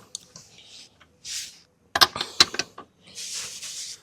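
Working with a ratchet wrench on the motorcycle's rear axle bolts: a quick cluster of sharp metal clicks about two seconds in, between patches of soft hissing and rustling.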